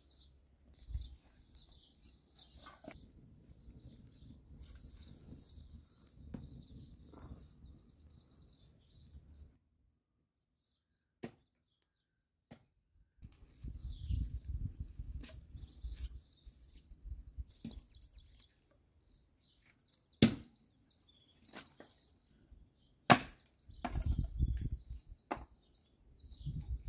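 Axe strikes splitting firewood: sharp wooden cracks, the two loudest about three seconds apart, with small birds chirping.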